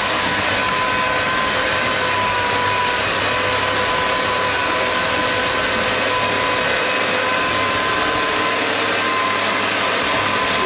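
A small electric motor whirring steadily with a constant whine.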